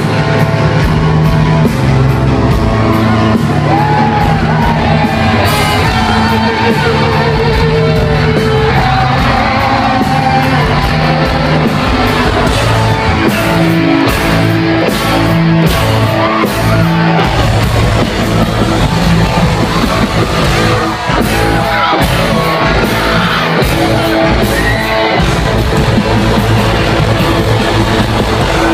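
Live rock band playing loudly, with the singer's vocals over the band, heard from within the concert crowd in a hall.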